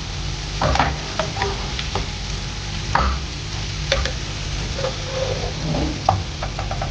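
Sliced onions frying in hot oil in a non-stick frying pan, sizzling steadily. A spatula scrapes and knocks against the pan now and then as the browned onions are pushed aside and lifted out of the oil.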